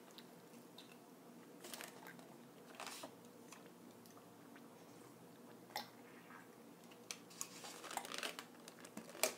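Quiet mouth sounds of eating and drinking: scattered soft clicks and smacks of chewing and sips from a mug, the sharpest click near the end.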